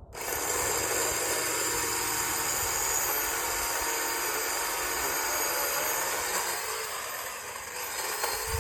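Small Black & Decker electric chainsaw running at full speed and cutting through a low tree branch: a steady high-pitched motor and chain whine that starts suddenly and eases off near the end as the cut finishes.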